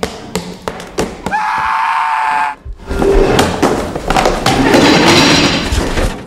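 A staged slapstick scuffle: sharp knocks and thumps of props striking. About a second in comes one long held tone, then a loud, dense, noisy racket over the last few seconds.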